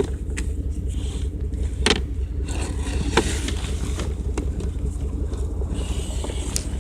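A vehicle engine running steadily at idle, a low rumble throughout, with a few short knocks and clatters of objects being handled about two, three, four and a half, and six and a half seconds in.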